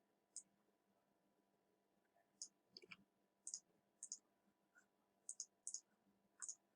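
Faint computer mouse clicks, about ten of them at irregular intervals, over a faint steady electrical hum.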